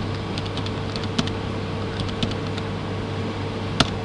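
Computer keyboard keys clicking as numbers are typed in short irregular runs, with one sharper click near the end, over a steady low electrical hum and hiss.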